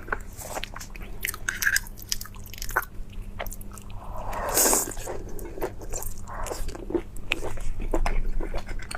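A person eating close to the microphone: biting and chewing, with many short crunchy clicks and wetter smacking sounds in an irregular rhythm.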